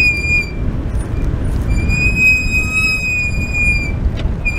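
High, steady squeal from a first-generation Ford Raptor pickup crawling slowly over rocks. It sounds in two long stretches, breaking off about half a second in and returning more than a second later, over a low rumble.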